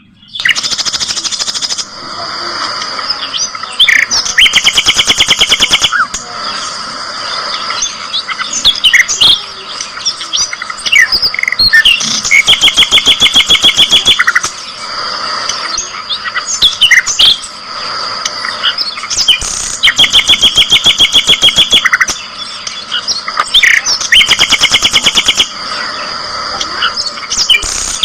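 Budgerigar chicks chirping. Several loud bursts of rapid, evenly spaced chirps, each about two seconds long, stand out over a constant high chatter and scattered single chirps.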